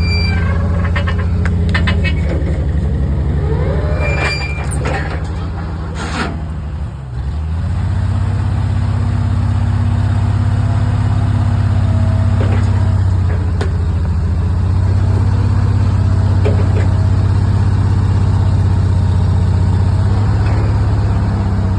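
Engine of heavy sawmill equipment running steadily, dipping briefly about seven seconds in before settling back. Short squeals and clicks sound over it in the first six seconds or so.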